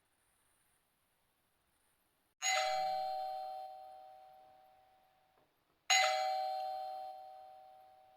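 Doorbell chime struck twice, about two seconds in and again some three and a half seconds later, each ring a sharp strike that fades slowly over a few seconds.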